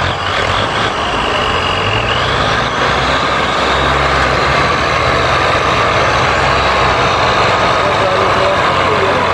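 Two tractor diesel engines running hard together, a red tractor in front of a Ford 3610 three-cylinder diesel, straining to pull a sugarcane-loaded trolley out of mud. The engine sound is loud and steady, and black exhaust smoke shows both are under heavy load.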